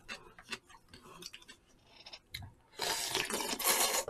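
Light clicks of chopsticks against takeout bowls, then, near the end, a loud slurp of jjamppong noodles lasting about a second.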